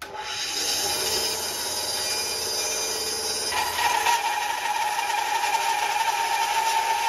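Ryobi 9-inch benchtop bandsaw running and resawing a tall board, the blade cutting steadily through the wood. About halfway through the sound changes and a steady high whine comes in and holds.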